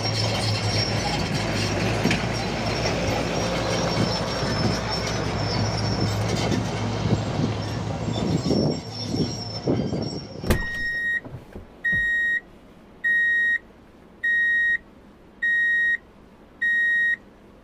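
Caterpillar 320GC hydraulic excavator running and working, its diesel engine a steady hum with scattered knocks as the bucket works the gravel. About ten seconds in it cuts off with a click into a steady series of electronic beeps, about one a second.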